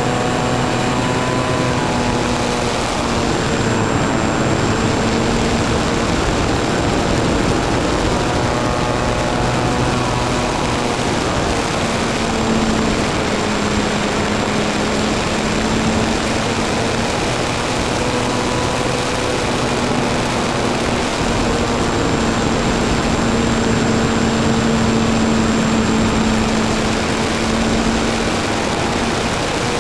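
Radio-controlled model plane's motor and propeller running steadily, heard from a camera on board, under a rush of wind noise. Its pitch drifts slightly up and down through the flight.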